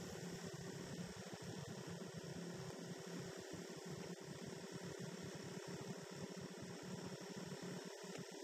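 Motorcycle cruising at a steady speed: an even, low hum of engine and road noise over a steady wind hiss.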